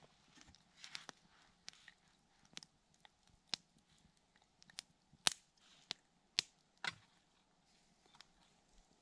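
Small wood campfire crackling: sharp, irregular pops and snaps, about a dozen, the loudest a little past the middle.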